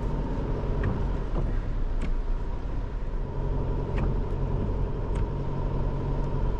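Vehicle driving, a steady low engine and road rumble heard from inside the cab, with a few sharp ticks scattered through it.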